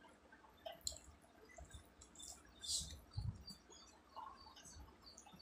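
Close-up eating sounds: fingers working rice on a tray, quiet chewing, and a few slurping sips from a small steel bowl, with soft wet clicks between them.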